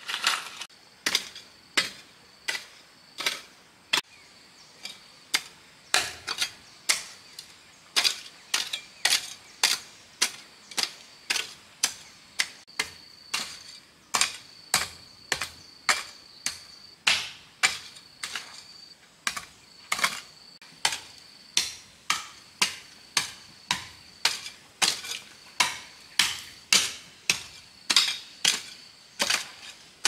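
A long, even run of sharp, hard taps, about two a second, with a faint high steady tone coming and going behind them.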